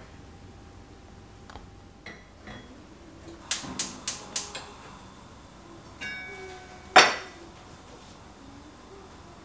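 Gas hob igniter clicking four times in quick succession as a burner is lit. Then a ringing clink and a sharp knock, the loudest sound, as the pot's lid is lifted and set down on the counter.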